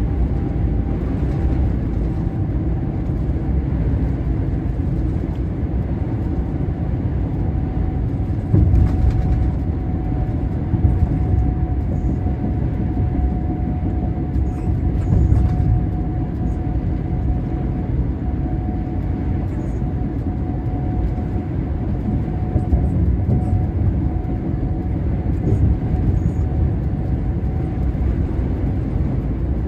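Steady low rumble of a truck's engine and tyres at motorway speed, heard from inside the cab, with a faint steady whine running through it. A few louder bumps come through now and then.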